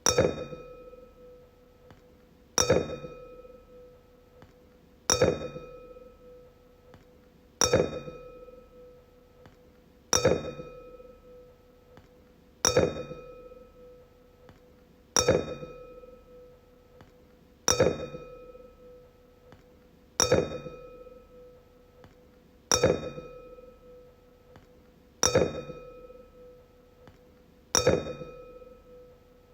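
Wine glass struck with a tap and ringing with a clear tone that dies away over a second or two, struck again about every two and a half seconds, twelve times.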